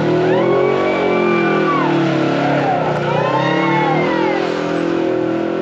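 Side-by-side UTV engine running under load on a steep rock climb, its revs swelling up and dropping back twice.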